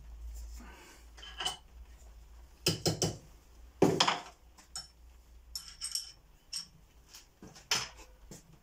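Steel hand tools clinking and clattering as they are picked up from and set down on a workbench, then fitted together: a string of sharp metallic clinks, the loudest about four seconds in.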